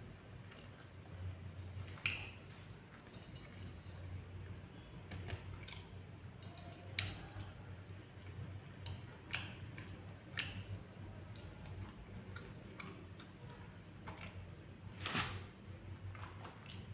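A person eating roast chicken and rice by hand, with chewing and wet mouth smacks and scattered small clicks; the loudest smack comes about 15 seconds in. A steady low hum runs underneath.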